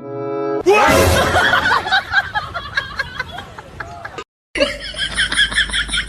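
A short musical cue ends, then people giggle and laugh with bits of talk for about four seconds. After a brief gap, a run of rapid, repeated high-pitched calls follows.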